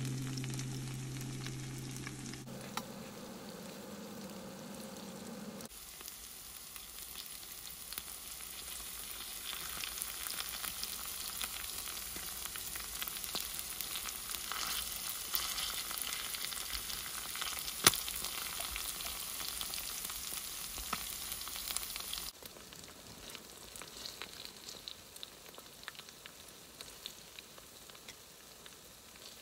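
Takoyaki batter frying in hot oil in the wells of a takoyaki pan: a steady sizzle with frequent small crackles as the oil spatters, and one sharp pop about 18 seconds in.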